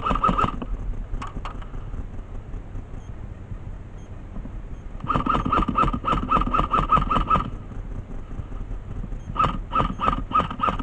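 Airsoft gun firing three bursts of rapid shots, each shot a sharp crack over a mechanical whir. One burst ends about half a second in, a longer one comes near the middle, and the last, broken by a short pause, starts near the end.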